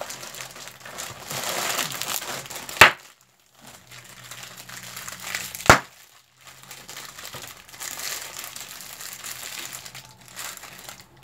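Plastic snack-cake wrappers crinkling and tearing as they are pulled open by hand, with two sharp snaps about three seconds apart.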